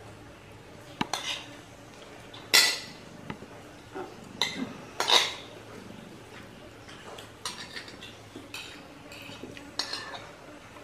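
Metal spoons clinking and scraping against plates and bowls as people eat, a string of short sharp clinks with two louder scrapes about two and a half and five seconds in.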